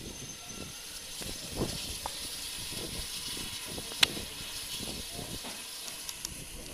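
Steam locomotive standing with a steady hiss of escaping steam, with scattered soft low thuds and one sharp click about four seconds in.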